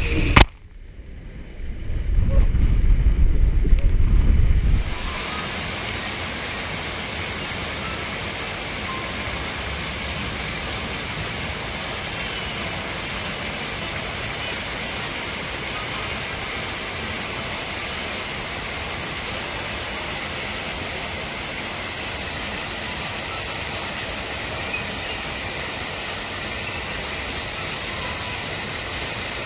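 A water-slide ride ends in a sharp splash about half a second in, followed by a few seconds of muffled, low rumbling under water. From about five seconds in there is a steady rush of flowing water.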